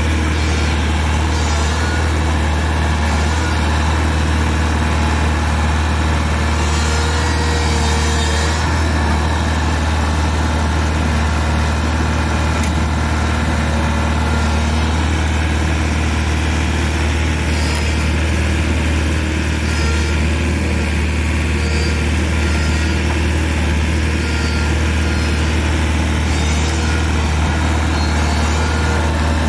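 Bobcat Toolcat 5600's diesel engine running steadily, a continuous low drone.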